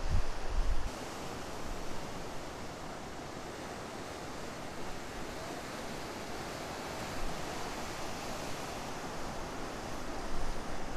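Ocean surf breaking and washing as a steady hiss of white water. For about the first second a loud low rumble of wind on the microphone sits over it, then stops abruptly.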